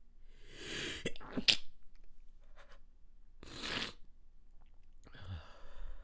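A person stifling a sneeze: a noisy breath drawn in, then a sharp, pinched-off burst about one and a half seconds in. A half-second noisy breath follows about three and a half seconds in, and another breathy, catching sound near the end.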